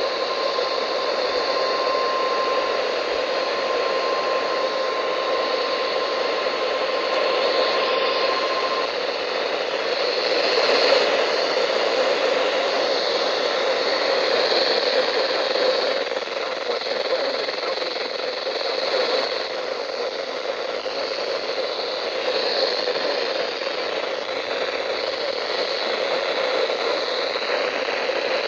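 NOAA Weather Radio receiver on a weak signal: a steady hiss of static, with a faint steady alert tone near 1 kHz, typical of the 1050 Hz weather-radio warning tone, for about the first nine seconds, then static alone.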